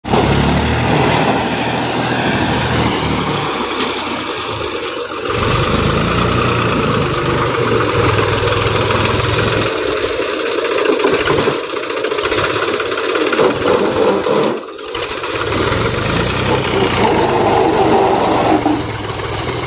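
Mahindra 275 DI tractor's three-cylinder diesel engine running while pulling a fully loaded trolley, its pitch rising and falling with the revs.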